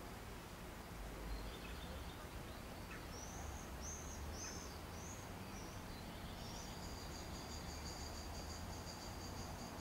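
Small birds singing outdoors: a few short, arched high chirps a few seconds in, then a rapid, high, repeated trill from about the middle on, over a faint low rumble.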